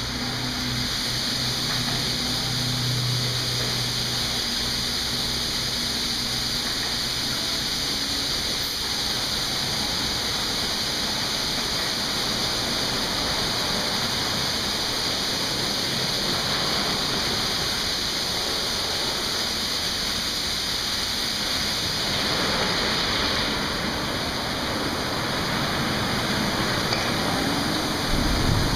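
Automatic tunnel car wash spraying water and foam over a car as the rotating brushes work, a steady rushing hiss of spray. A low machine hum sounds under it for the first few seconds, and the spray changes character about two-thirds of the way through.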